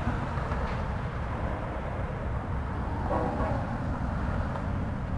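Steady low rumble of road traffic driving through a rail crossing, mixed with a diesel freight locomotive's engine running.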